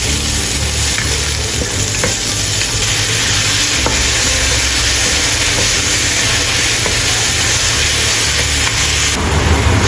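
Shimeji mushrooms stir-frying in hot oil in a wok: a steady sizzle, with a spatula scraping and tossing them and a few light knocks against the pan.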